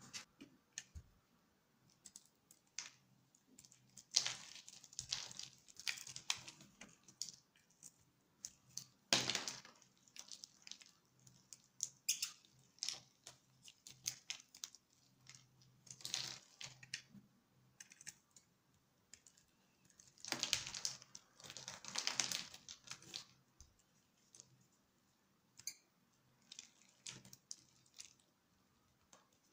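A bar of soap cut into a grid of tiny cubes being broken apart with the fingers and scraped with a utility-knife blade: irregular crisp clicks and crackles as the little cubes snap off and fall. There are several longer runs of crumbling and scraping, the longest about two-thirds of the way through.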